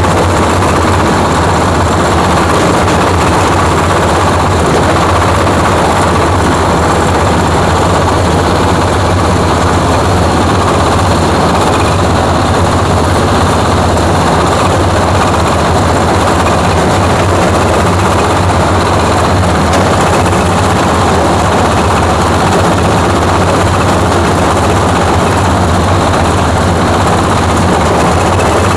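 Coconut-husk grinding machine (a hammer-mill type grinder) running at full speed, a loud, steady, rattling mechanical din with a deep hum underneath. It is grinding coconut husk into cocopeat through a 5 mm screen.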